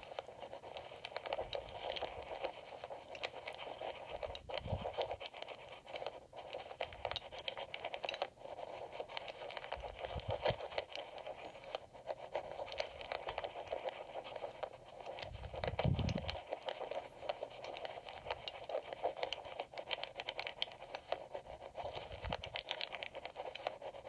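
Steel lock pick scraping and clicking against the magnetic rotors inside an EVVA MCS cylinder while it is held under tension, picked up through an amplifier. The pick is working rotor one, the last rotor left to set. A dense, continuous run of fine scratches and ticks, with a few soft low thuds.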